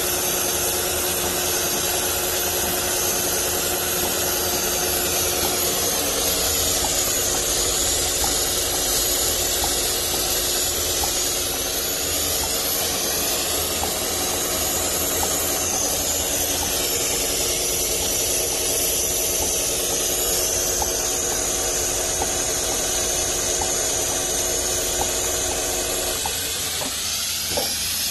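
Richpeace computerized pattern sewing machine running continuously as it quilts a panel: a steady mechanical whir and hiss with faint regular needle ticks, and slow rising and falling whines as the clamp frame drives back and forth. The sound changes in the last two seconds.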